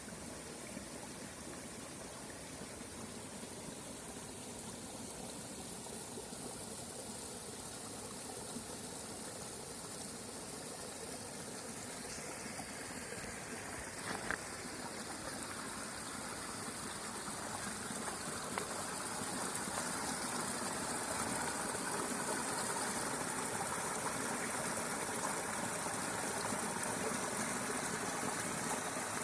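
Small creek flowing, a steady rush and trickle of water that grows louder about two-thirds of the way through. A brief click about halfway.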